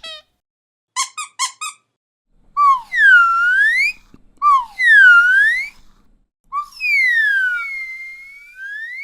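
Toy sound effects: four quick squeaky chirps, then three swooping whistle-like tones that each dip in pitch and rise again, the last one longer and drawn out.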